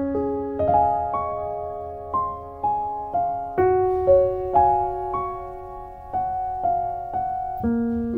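Slow, gentle piano music: a melody of single notes, about two a second, each struck and then fading over sustained lower notes.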